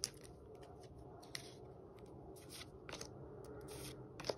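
Faint handling of Pokémon trading cards: soft swishes and light clicks as cards are slid and flipped one by one in the hand, with a sharper click near the end.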